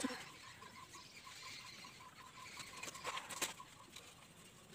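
Pencil drawing on paper: faint scratchy strokes, with a short cluster of sharper strokes about three seconds in. A faint high pulsing tone repeats several times a second through the first half.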